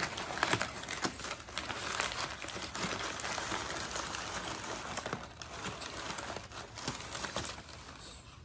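Crumpled brown kraft packing paper rustling and crinkling as hands dig through it in a cardboard shipping box, full of small sharp crackles. It eases off near the end.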